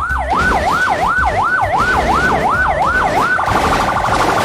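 Electronic police siren sweeping up and down about three times a second. A little over three seconds in, it switches to a fast, steady warble.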